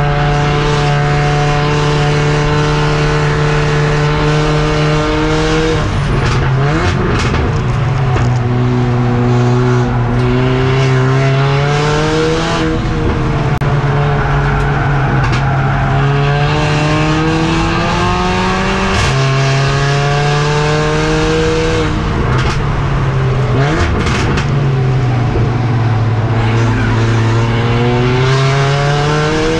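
Mercedes CLA45 AMG race car heard from inside at racing speed: its turbocharged four-cylinder engine holds a steady high note for about six seconds, then drops and climbs again several times as it slows and accelerates through the lap, with a few brief knocks along the way.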